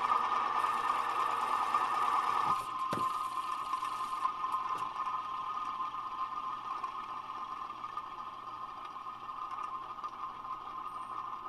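Vintage industrial ceiling fan motor running with its once-seized, oil-soaked bearings making a steady harsh whine that sounds terrible. About two and a half seconds in, a knock is heard, the rougher noise drops away, and a narrower whine carries on, slowly fading.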